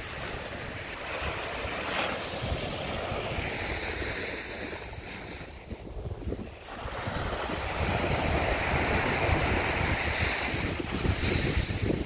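Small waves breaking and washing up a sand beach, with wind rumbling on the microphone. The surf dips briefly about halfway through, then swells louder.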